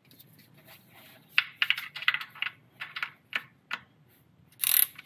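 Hand ratchet clicking in short irregular runs as the new oil drain plug with its crush washer is tightened, followed by a brief louder burst of noise near the end.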